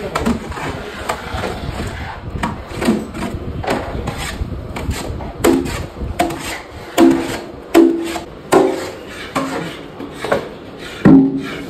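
Rhythmic scraping and knocking of a utensil working in a pan, the strokes coming about once a second from midway on, each knock with a short ringing tone.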